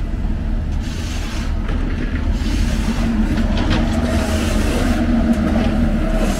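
A large vehicle running, a steady low rumble with a droning hum that grows slightly louder.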